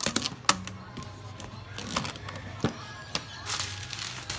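Small cardboard phone boxes knocking and scraping against each other and on a wooden tabletop as they are handled and restacked: a few separate sharp taps and a short sliding scrape about three and a half seconds in.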